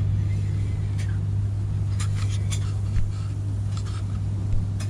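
A cat licking its fur close by: short, wet tongue clicks in small clusters over a steady low hum, and the hum is the loudest sound.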